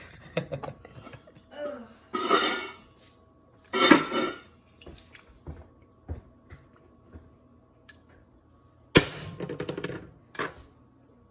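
Food-prep handling sounds: a knife, a bowl and utensils knocking and clinking on a plastic cutting board, in several short bursts, with a sharp knock about nine seconds in.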